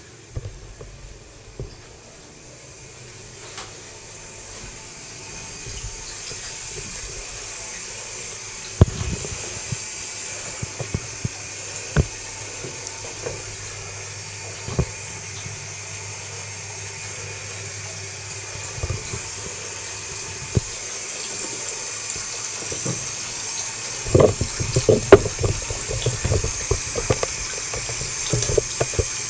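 Water running into a bathtub: a steady rushing hiss that slowly grows louder. Sharp knocks and clatters come through it, a few at first and many in the last few seconds.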